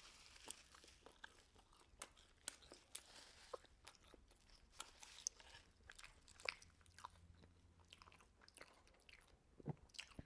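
Faint chewing and biting: a person eating fried chicken fast food, with scattered small crunches and mouth clicks.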